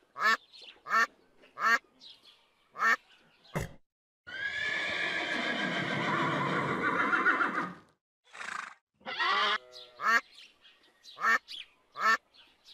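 Ducks quacking in short calls spaced under a second apart, broken in the middle by a horse's long whinny lasting about three and a half seconds, then more quacks near the end.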